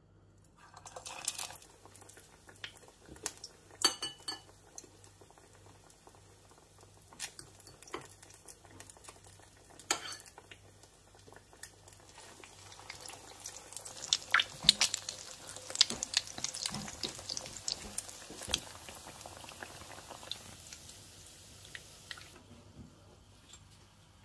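Egg-dipped pinwheel rolls sizzling in hot oil in a frying pan, with a metal spoon and fork clicking against the pan now and then. The sizzle starts about a second in, turns into dense crackling and spitting in the middle, and dies down near the end.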